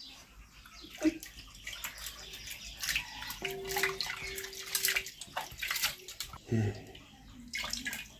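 Cut potato pieces being washed by hand in a steel bowl of water: irregular splashing and sloshing as the hands rub and stir them.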